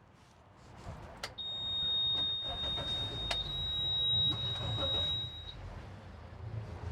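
A steady, high-pitched electronic beep held for about four seconds, then cutting off, with a couple of sharp clicks and a low rumble underneath.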